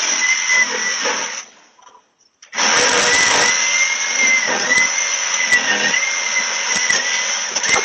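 A power saw cutting through the exhaust pipe under a Toyota Prius to remove its catalytic converter, heard through a doorbell camera's microphone. It runs with a steady high whine that sags now and then under load. It stops for about a second after a second and a half, then starts again and keeps cutting.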